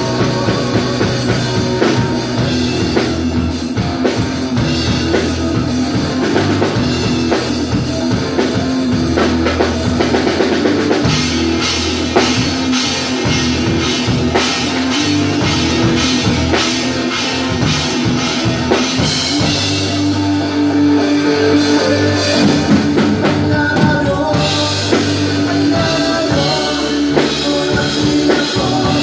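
Rock band playing live: a drum kit keeps a steady beat under guitars and bass, with some singing.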